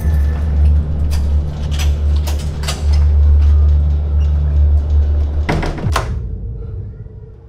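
Low, droning horror-film score with repeated knocks and rattles of a door being banged. Two loud bangs come about five and a half seconds in, then everything fades away.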